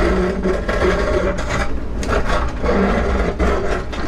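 Volvo 140 excavator's diesel engine and hydraulics working under load, with the pitch of the hydraulics rising and falling, and repeated grating and scraping as the steel bucket works against rock.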